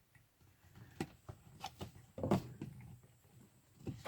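Clicks and knocks of a plastic water hose being worked onto a small spigot, with a short strained grunt of effort about two seconds in and another short one near the end.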